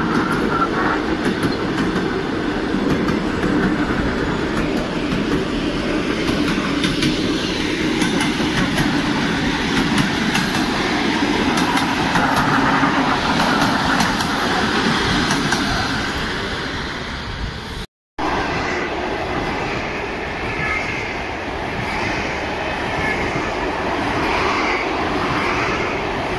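ED4M electric multiple unit passing close by at a level crossing: a steady loud rumble of the running train with repeated clicks from the wheels over the track. After a sudden cut about two-thirds of the way in, a red Aeroexpress electric train runs past a platform, a little quieter.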